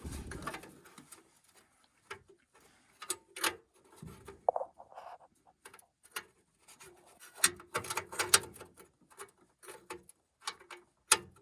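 Hand tools and metal parts being handled while working on a gas furnace: scattered clicks and light knocks, with a short pitched squeak about four and a half seconds in.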